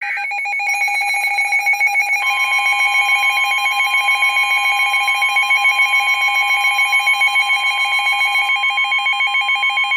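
Emergency Alert System attention tones for a severe thunderstorm warning: a fast warbling, pulsing electronic alarm, joined about two seconds in by a steady single-pitch alert tone. The warbling stops near the end while the steady tone carries on.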